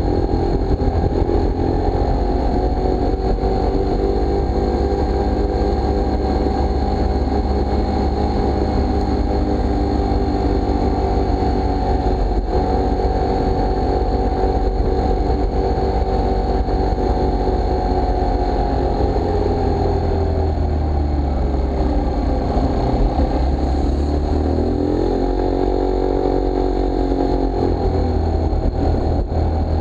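Motor scooter running at low cruising speed on the road, its motor note steady, then dropping and climbing back twice in the last third as the throttle eases and opens again.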